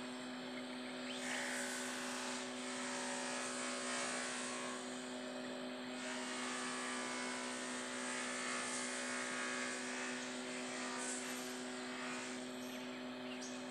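A steady mechanical drone with a constant hum over an even hiss, unchanged throughout.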